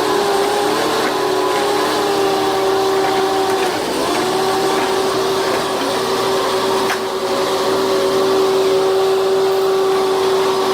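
A motor running fast with a steady high whine, its pitch sagging briefly about four seconds in, as if under load, then settling back.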